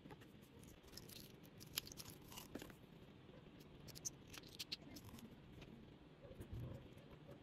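Weeding hook picking and peeling cut adhesive vinyl off its backing sheet: faint, scattered ticks and small crackling peels.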